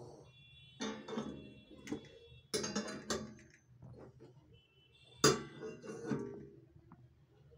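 Glass tealight cups knocking and clinking against the iron candle holder's wire rings and base as they are set in place. There are several sharp knocks, each with a short glassy ring; the loudest comes about five seconds in.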